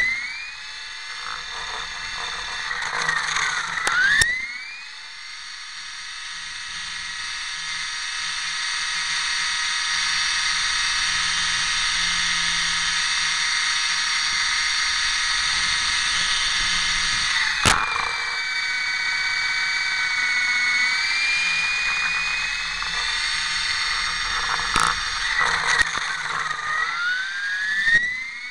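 RC model helicopter's motor and rotor running, heard from on board the model as a high, steady whine. The pitch dips and climbs again near the start and near the end, wavers around the middle, and a sharp click cuts in about two-thirds through.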